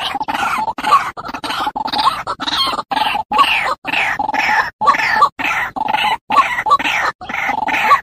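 White-breasted waterhen (ruak-ruak) lure call: harsh calls repeated rapidly over and over, broken by short silent gaps.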